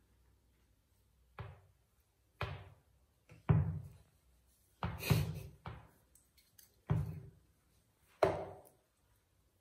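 A series of about six short knocks, irregularly spaced roughly a second apart, each starting sharply and dying away within half a second; the loudest comes about three and a half seconds in.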